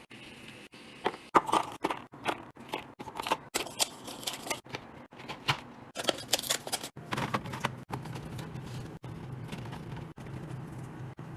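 Restocking and organizing sounds: packaging and containers being handled and set down, giving a quick, irregular run of clicks, taps and rustles. A low steady hum comes in about halfway through.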